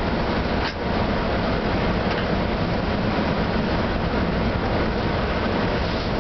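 Steady running noise inside the cab of an FS E655 'Caimano' electric locomotive travelling at speed on the line, with traction cut so that it is coasting.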